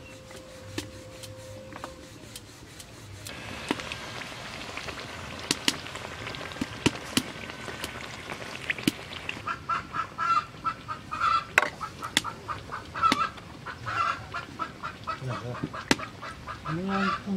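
Hot oil sizzling in a wok as a stuffed Mughlai paratha fries, with the metal spatula scraping and tapping. About halfway through, a chicken starts clucking in quick repeated calls, and near the end there are a few lower, drawn-out bird calls.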